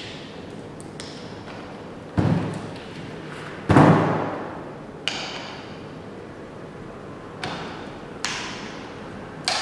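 About six separate metal clunks and knocks as a magnetic core drill is handled and set on a table. The loudest comes a little under four seconds in, and several leave a short metallic ring.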